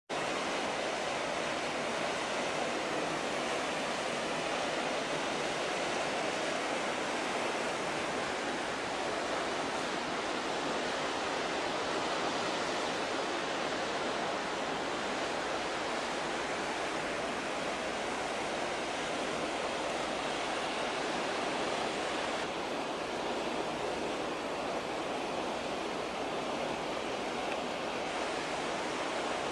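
Steady rushing noise of wind and the ship's churning wake water on the deck of a moving container ship, with no tones or knocks; it turns a little hissier for a few seconds near the end.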